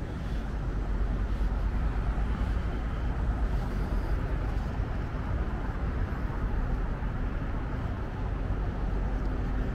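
Steady city street ambience: a constant low traffic rumble with no distinct events.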